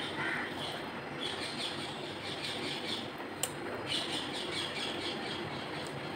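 Small birds chirping in quick repeated runs over a steady background hiss, with one sharp click about three and a half seconds in.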